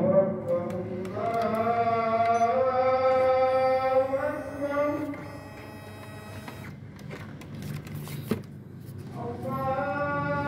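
A man's voice chanting long, held notes that step slowly in pitch. It breaks off for a few seconds past the middle, where a few knocks are heard, and then starts again near the end.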